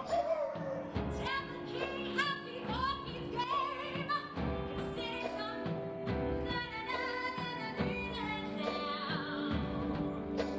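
Live musical-theatre song: a band playing a steady beat under sung vocal phrases.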